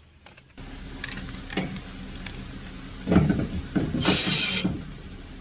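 Cordless drill-driver whirring in short runs as it drives screws into a terminal block, with the loudest burst about four seconds in.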